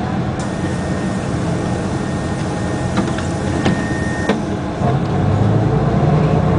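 Den Oudsten Alliance B96 city bus running with a steady mechanical rumble and a few light knocks. About five seconds in, the engine note comes up louder and deeper.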